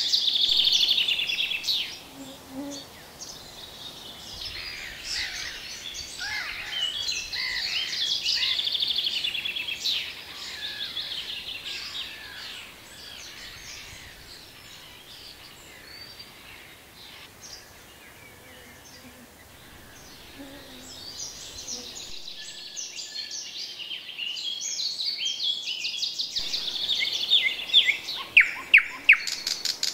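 Songbirds singing in a dense, overlapping chorus, quieter in the middle stretch. Near the end a thrush nightingale sings loudly in rapid runs of sharp repeated notes.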